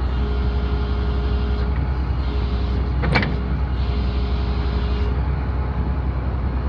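International DT466 7.6-litre inline-six diesel engine running steadily, with a faint steady whine over it. One sharp click comes about three seconds in.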